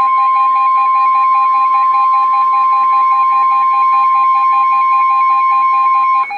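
NOAA Weather Radio 1050 Hz warning alarm tone, a loud steady beep, sounding over a rapid electronic beeping of about five pulses a second. The steady tone cuts off near the end while the beeping continues.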